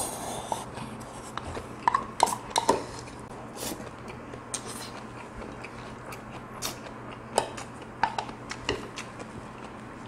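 A person eating bibimbap: chewing, with a spoon and chopsticks clicking and scraping against a stainless steel bowl, a cluster of ringing clinks about two to three seconds in.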